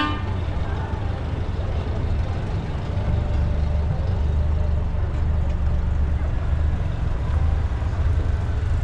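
Engines of slow parade vehicles driving past, an old pickup truck and then side-by-side UTVs, making a steady low rumble.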